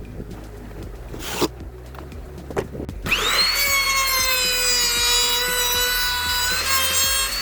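Two knocks, then a small electric power tool's motor spinning up about three seconds in and running with a steady whine.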